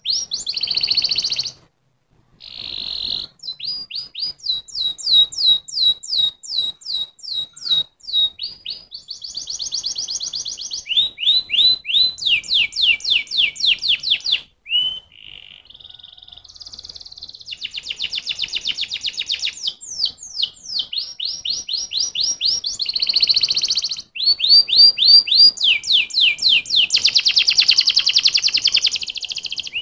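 Domestic canary singing a long, loud song. It is made of phrases of one note repeated over and over: some are slow runs of sweeping whistles, others are fast rolls. Short breaks come about two seconds in, near the middle, and a few seconds before the end.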